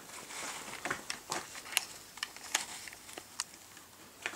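A handful of light, irregular clicks and taps from parts of a Wintersteiger Discman edge sharpener being handled as its sharpening stone and centre screw are fitted back in place.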